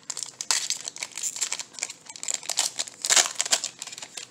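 Foil wrapper of a Magic: The Gathering booster pack crinkling and tearing as it is opened by hand: a dense run of irregular crackles, loudest a little after three seconds in.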